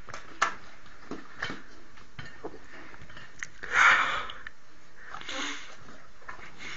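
Dog making short breathy noises: a few faint clicks, then a loud breathy burst about four seconds in and a softer one about a second later.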